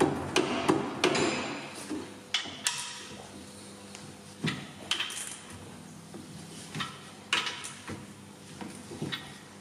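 Irregular sharp metallic clicks and clunks of a long torque wrench turning the bolts of a steel torque plate on a Subaru EJ25 aluminium engine block, with a faint steady machine hum beneath.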